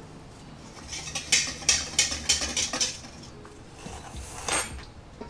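A fork clinking against the bottom of a metal cake pan as holes are poked into the cake, a quick run of about ten clinks. Near the end, one ringing clink of a metal measuring cup against a stainless-steel mixing bowl.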